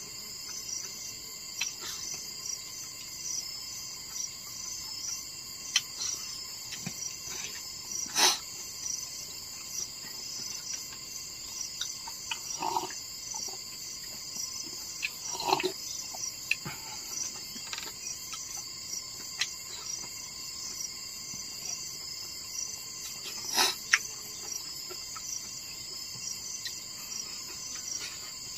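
Steady high-pitched insect chorus with a regular pulsing rhythm, with scattered sharp clicks and knocks.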